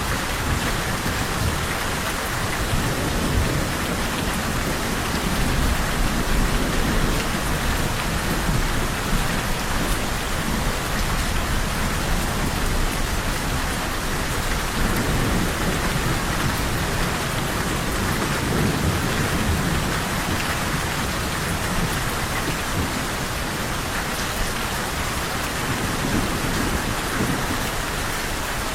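Steady rain falling, with low rumbles of thunder swelling up twice, a few seconds in and again about halfway through.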